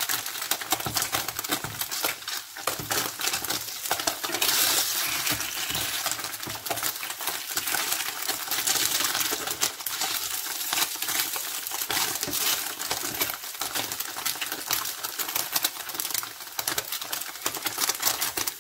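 Crab sticks frying in vegetable oil in a non-stick frying pan: a steady, dense sizzling crackle of spattering oil, with light clicks of wooden spatulas as the sticks are turned.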